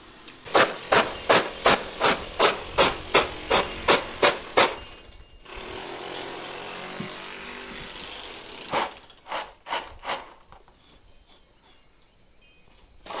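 Dried garlic cloves rubbed and tossed on a plastic tray to shake off their papery skins: a run of about a dozen rhythmic rustling strokes, about three a second, then a steady hiss, then five quicker strokes.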